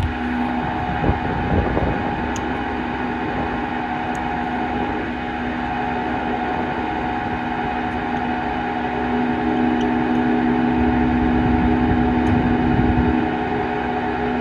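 International Durastar service truck running with its hydraulic system engaged: a steady mechanical hum carrying constant whining tones, a little louder for a few seconds past the middle. A single click at the very start.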